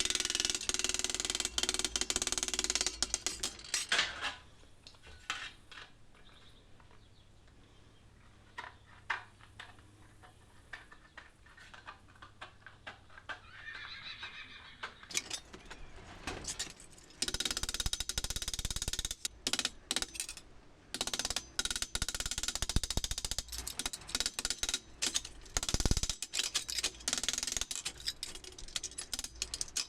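Hand work at a workbench: scraping noise in stretches a few seconds long, with many scattered clicks and knocks, and a quieter spell in the middle.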